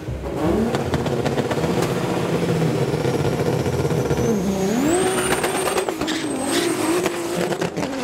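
Drag-race car engines at high revs. One is held at a steady pitch through a tyre-smoking burnout, then partway through the pitch dips and climbs again as cars launch off the line. A thin high whistle and sharp crackles ride on top.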